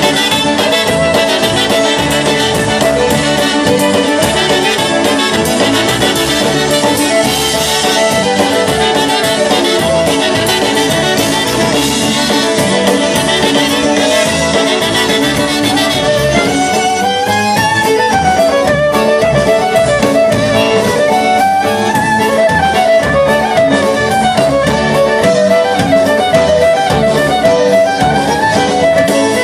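Live polka band playing: two trumpets with fiddle and accordion. About halfway through, the trumpets stop and the fiddle carries the melody alone over the accompaniment.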